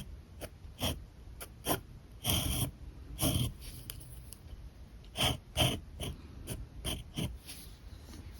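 Alcohol marker tips stroking across paper: a run of short, scratchy strokes and taps, a few of them longer sweeps.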